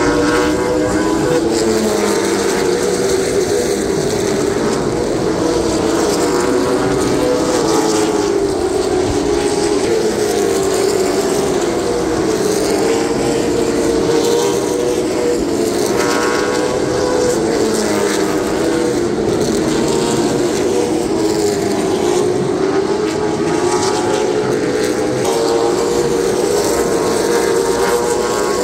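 A field of late model stock cars' V8 engines running hard around the oval. The pitch rises and falls every few seconds as the cars come past and go through the turns.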